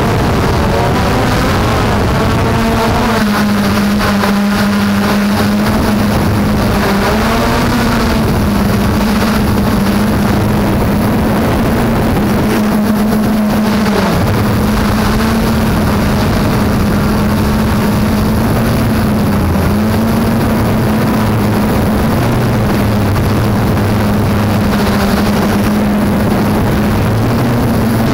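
Traxxas Aton quadcopter's brushless motors and propellers buzzing steadily in flight, heard through its own on-board camera with wind rush. The pitch shifts slightly up and down every few seconds as the throttle changes.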